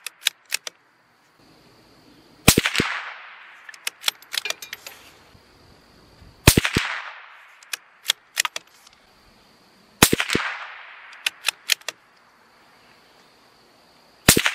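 CZ 457 bolt-action .22 LR rifle firing supersonic Remington Thunderbolt rounds: four shots about four seconds apart, each a sharp crack with an echoing tail, the last right at the end. A second or so after each shot comes a short run of metallic clicks as the bolt is worked to chamber the next round.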